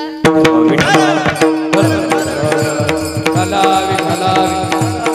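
Kirtan accompaniment breaking in loudly: a held harmonium note with rhythmic drum strokes and clashing hand cymbals.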